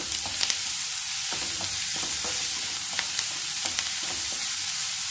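Sliced onions sizzling in hot coconut oil in a nonstick pan while being stirred with a wooden spatula, with scattered light scrapes and taps of the spatula against the pan over a steady frying hiss.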